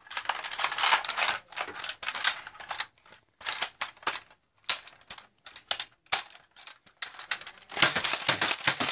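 Plastic clicking and clattering of a Nerf blaster and its dart drum being handled and fitted together: a dense run of clicks at first, scattered clicks through the middle, and another dense burst near the end.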